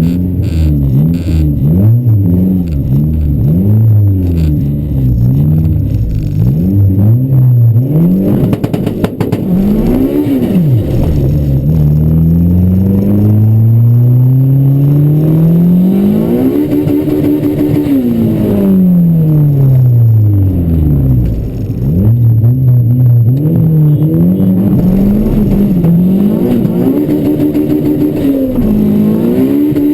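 A Honda Civic's VTEC four-cylinder engine revving: a run of quick blips, then a long climb to high revs held there for a second or two before dropping back, then more blips and another climb held high near the end.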